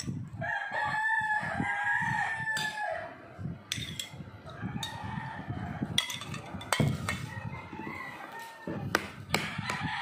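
A rooster crowing, one long call of about two and a half seconds starting about half a second in. A metal spoon clinks against a ceramic plate and bowl several times.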